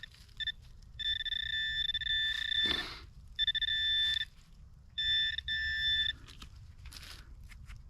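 Metal detector's steady high-pitched target tone, sounding in several stretches of one to two seconds with short breaks as the target is pinpointed. A soft knock of digging comes near the end of the first stretch.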